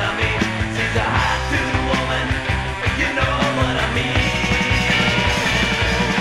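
Late-1970s hard rock band recording playing with a steady beat.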